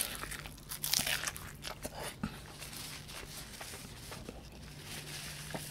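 A bite into a beef Wellington's puff-pastry crust at the start, then chewing with small crackles of pastry over the next couple of seconds, growing quieter.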